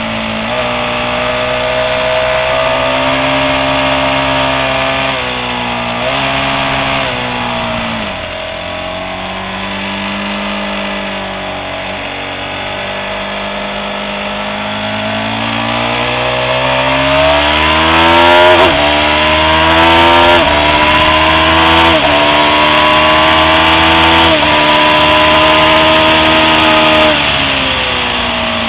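Onboard sound of a Ducati motorcycle engine at racing speed, its revs climbing and then dropping sharply at each upshift, over heavy wind rush on the microphone. The revs sag and climb slowly through a long corner in the middle, then rise hard through several quick upshifts before easing off near the end.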